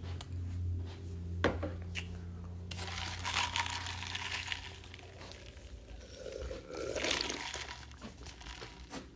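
Rustling and rubbing of the phone against fabric or a hand, picked up on its microphone, in bursts, with a sharp click about a second and a half in.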